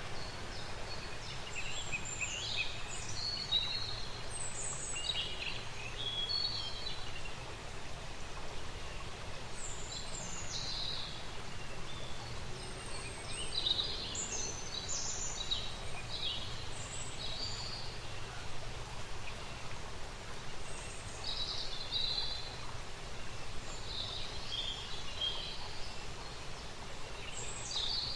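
Nature ambience: small songbirds chirping and calling on and off, in short irregular phrases, over a steady low background hush.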